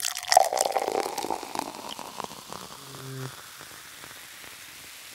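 Sparkling wine fizzing: a dense crackle of bursting bubbles, loudest in the first second and dying away over about three seconds. A brief low hum comes in near three seconds.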